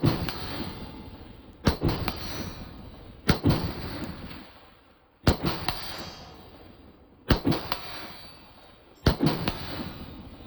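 ATI AR-15 pistol with a 7.5-inch barrel being fired in slow aimed shots: five shots about one and a half to two seconds apart, each followed by a long rolling echo.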